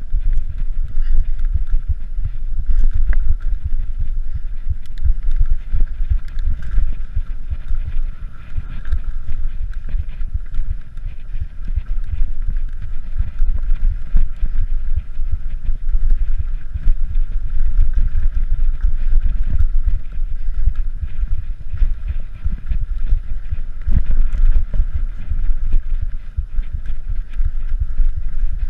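Mountain bike rolling over sandstone slickrock: a steady low rumble of ride and wind noise on the microphone, with many small knocks and rattles from the bike over the rock.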